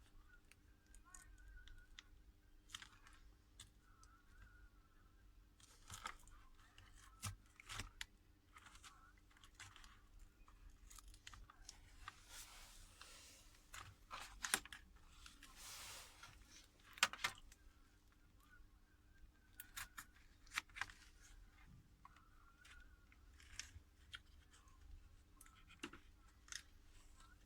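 Scattered small clicks and scrapes of prying tools working the glued glass back off a Samsung Galaxy Note 10+, with two longer scraping stretches near the middle as the adhesive gives.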